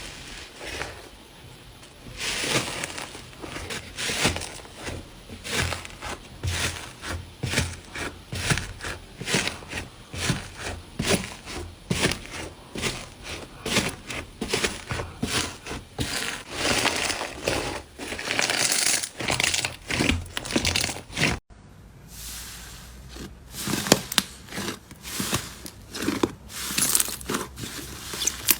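Slime being squeezed and pressed by hand: a rapid string of crackly, crinkly squishes. The sound breaks off about three quarters of the way through and a different slime takes over with similar squishing.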